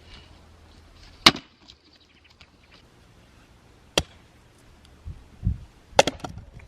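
Sharp chopping strikes, three of them a couple of seconds apart, with a duller low thump just before the last.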